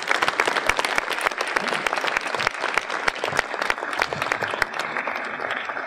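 Audience applauding: many hands clapping together in a dense, steady patter, in thanks at the close of a speech.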